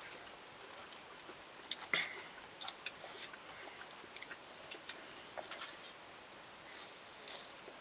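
Someone eating: faint chewing with scattered light clicks of utensils on dishes.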